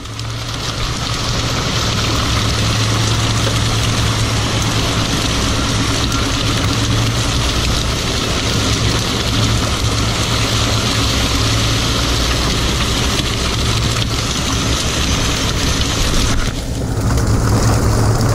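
A fishing boat's engine and deck machinery running steadily with a low hum, under a broad rush of noise. The sound shifts briefly near the end, then comes back a little louder.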